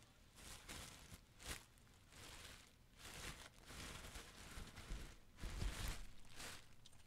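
Quiet rustling and light clatter of retail packages, plastic bags and DVD cases being handled and set into a cardboard box, with a few dull thumps about five to six seconds in.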